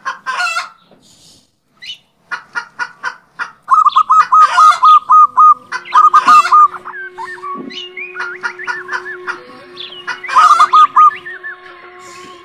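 Rapid runs of bird-like calls and clicks, with steady held tones coming in about halfway through.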